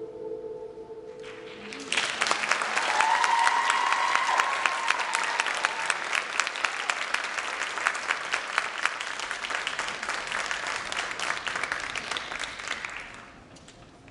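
The last held notes of the music die away, then an audience breaks into applause about two seconds in, with a high drawn-out cheer soon after; the applause fades out near the end.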